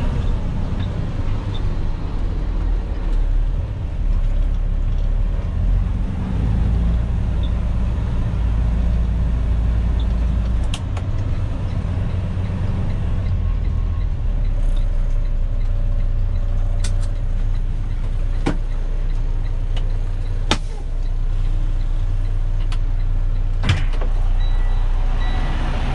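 Freightliner 122SD dump truck's diesel engine running at low speed, heard from inside the cab as the truck rolls slowly, with a few scattered sharp clicks and knocks. A hiss comes up near the end.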